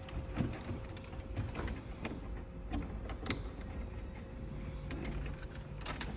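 Scattered light clicks and taps of a credit card reader's cellular antenna being handled and fitted by hand, over a faint steady hum. A low hum joins about four and a half seconds in.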